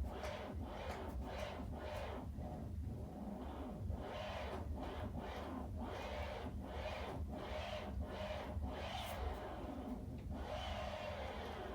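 Vinyl single playing on a turntable, with repeated clicks and crackle from dirt in the grooves over a steady low rumble.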